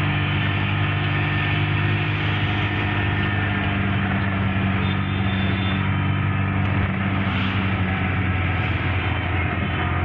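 Car engine running steadily with tyre and road noise while driving through city traffic, heard from inside the car.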